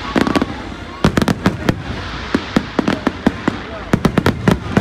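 Fireworks display: aerial shells bursting in many sharp bangs and cracks, several a second, in quick irregular clusters.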